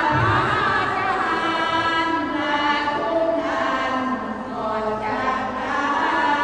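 A women's sorapan troupe chanting Buddhist devotional verse, the Isan tradition of sung chant, to a slow melody of long held notes that step up and down.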